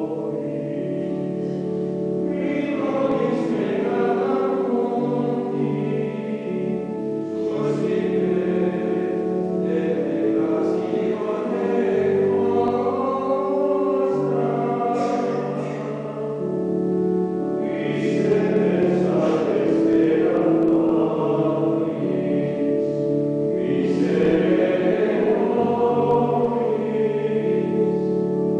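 Choir singing in several voices, with long held chords in phrases a few seconds long and short breaks between them.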